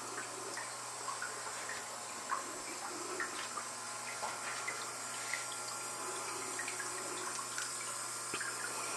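Aquarium water splashing and trickling steadily, with small drip-like ticks scattered through it, over a low steady hum.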